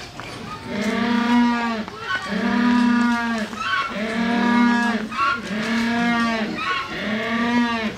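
Humboldt penguins braying in the head-up ecstatic display: five long, donkey-like brays, each about a second, with short breaths between.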